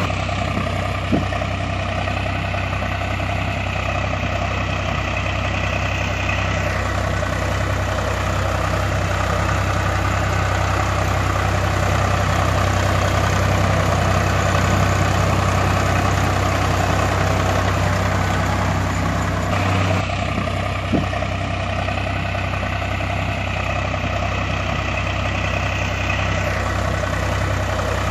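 Engine idling steadily with a constant low hum. The recording loops, repeating exactly about every twenty seconds.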